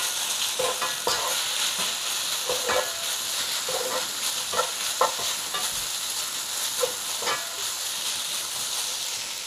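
Chicken strips sizzling in a hot nonstick frying pan while a wooden spoon stirs them, with irregular scrapes and knocks of the spoon against the pan over a steady frying hiss.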